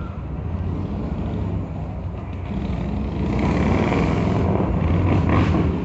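Low engine rumble of a motor vehicle, swelling louder over the second half.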